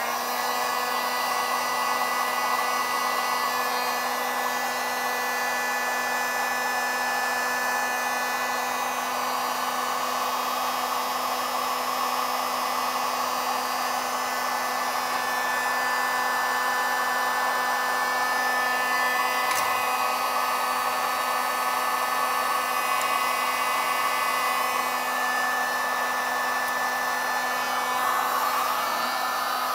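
Electric heat gun switched on and running steadily, a rush of blown air over a steady motor hum, as it shrinks heat-shrink crimp connectors on wiring.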